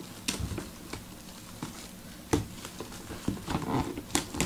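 Plastic shrink-wrap crackling and rustling as hands peel it off a cardboard box, in scattered small clicks with a couple of sharper crinkles.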